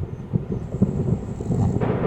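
A sleeping person snoring: a rough, rattling breath made of irregular low pulses, growing louder and harsher near the end.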